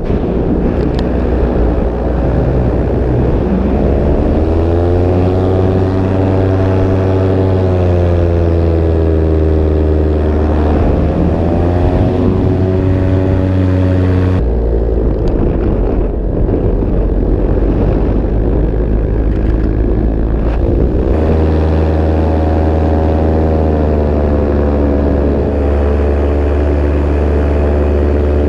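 Paramotor engine and propeller running loudly at the pilot's back in flight, its pitch slowly rising and falling as the throttle is worked. About halfway the higher engine tone drops out abruptly, leaving a low drone, and it comes back some seven seconds later.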